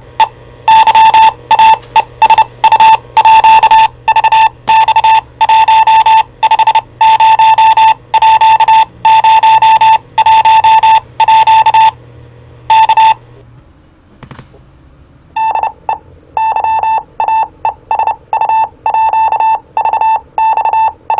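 Loud, high-pitched electronic beeps of uneven length, short and long, keyed on and off in quick succession from a Yaesu VX-150 VHF handheld radio. They break off about thirteen seconds in and start again about two seconds later.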